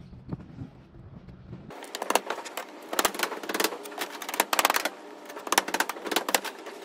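Slater's hammer driving nails to fix roof slates: rapid clusters of sharp taps starting about two seconds in, after a low steady rumble.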